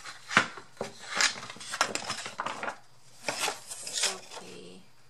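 Stiff scrapbook paper rustling and crackling as it is handled, with sharp knocks and clatter from a small wooden purse box being moved on the craft table.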